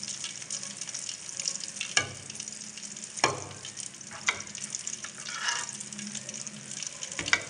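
Coated fish pieces sizzling steadily as they deep-fry in hot oil in a metal kadai, while the pieces are turned over with a slotted metal skimmer, which knocks sharply against the pan about four times.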